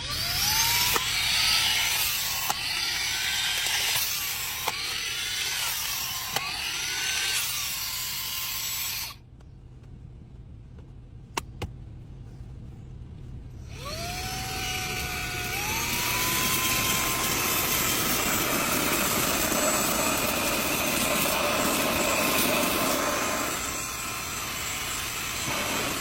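Small handheld vacuum cleaner motor switched on and off several times, each click followed by a rising whine. After a quiet spell of about four seconds it spins up again and runs steadily.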